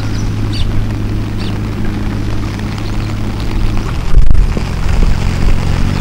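A steady low hum like an engine running, with a few faint high chirps in the first second and a half and a brief low thump about four seconds in.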